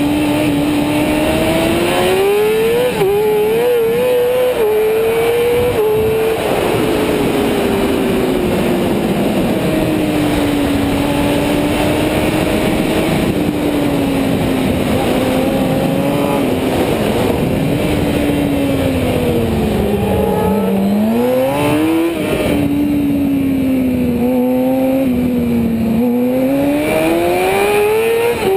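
Racing motorcycle engine heard from the rider's helmet, revving up and down through the gears as it laps the track. Its note climbs with quick drops at gear changes, sinks to its lowest about two-thirds through, then climbs hard again near the end.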